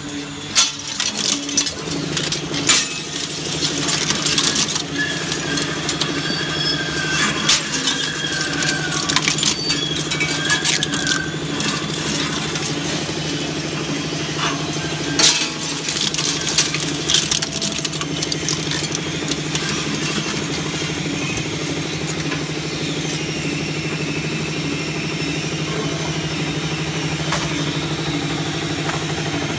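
Enerpat scrap metal shredder running with a steady hum as its rows of cutter discs turn. Sharp metallic clinks and clanks are scattered through the first eighteen seconds or so, then it settles to the even hum.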